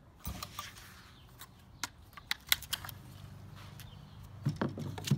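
Scattered sharp clicks and rustles of handling noise as the rubber-coated landing net is handled and the camera is moved, the loudest click about two and a half seconds in and another just before the end.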